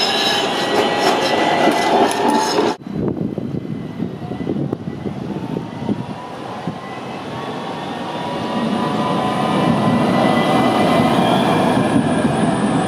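AnsaldoBreda Sirio light-rail trams running on street track. One passes close with wheel and rail noise and a thin whine. After a sudden cut about three seconds in, another tram approaches, and its rolling noise grows louder over the last few seconds as it passes close by.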